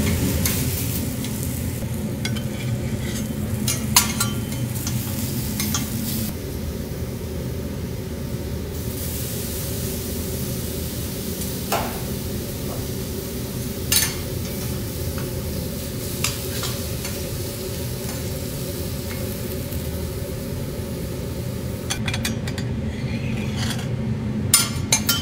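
Shrimp sizzling on a hot steel teppanyaki griddle, with a few sharp clicks of metal spatulas tapping the plate, several near the end.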